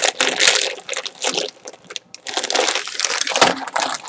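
Fritos chip bag crinkling and rustling as it is handled, in two loud spells with a short pause about halfway.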